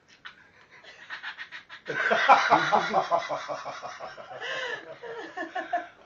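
Budgerigar chattering and warbling at its mirror reflection: faint at first, then a loud, rapid run of chatter from about two seconds in that carries on to near the end.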